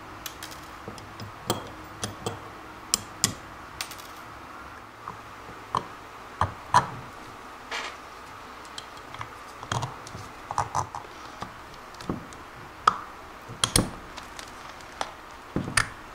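Small metal parts of a Wilwood six-piston brake caliper clicking and clinking on a workbench as its pad retaining pins are pulled with pliers and the brake pads are fitted: irregular sharp clicks and taps, a few much louder than the rest.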